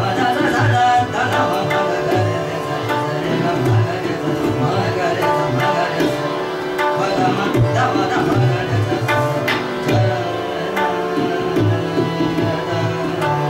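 Indian classical instrumental music: a guitar plays a melodic line over a steady held drone, with a tabla keeping rhythm in deep, regularly recurring bass strokes.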